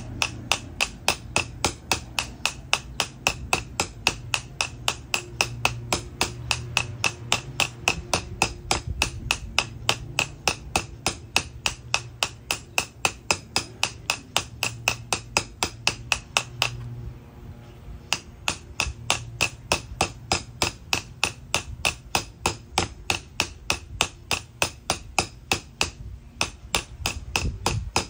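Ball-peen hammer tapping steadily on the metal rim of an AC compressor clutch's field coil, driving it down onto the compressor nose: quick light strikes, about three a second, each with a short metallic ring. The tapping pauses briefly a little past halfway, then carries on.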